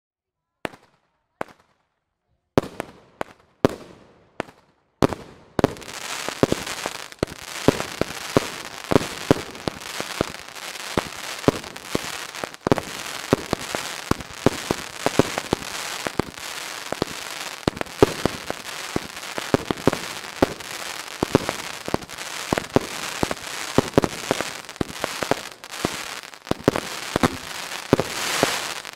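Fireworks going off: a few separate sharp bangs over the first five seconds, then from about six seconds in a continuous crackle packed with rapid pops, several a second.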